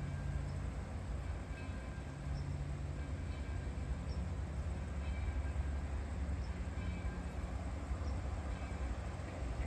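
Arcade & Attica steam locomotive No. 18 heard from a distance, a low steady rumble.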